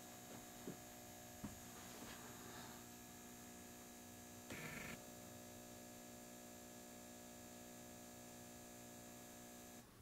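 Faint, steady electrical hum from a running Power Jack inverter's transformer, several even tones together. It cuts off suddenly just before the end as the inverter is switched from On to power-save mode from the phone app. There is one short noise about halfway through.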